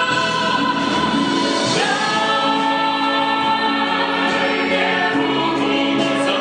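Musical theatre finale: a male and a female lead and a full chorus sing together over musical accompaniment, holding long notes, with a change of chord a little under two seconds in.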